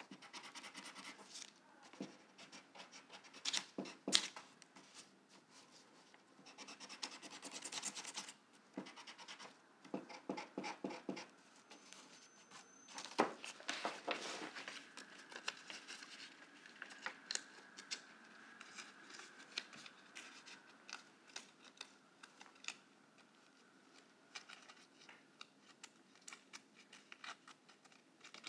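Pencil eraser rubbing in short, irregular scratchy bursts as pencil lines are erased from cut-out letters, with a few light clicks. Scissors start snipping near the end.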